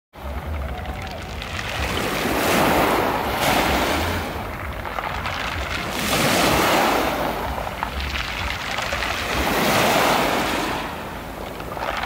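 Small waves washing up a shingle beach of smooth, rounded pebbles, then drawing back and dragging the pebbles with them in a hissing, clattering rattle. The surf swells three times, about every three to four seconds.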